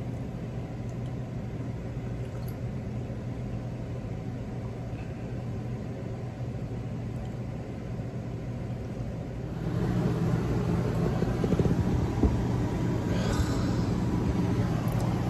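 Steady low mechanical hum with a rumble underneath, growing louder about ten seconds in.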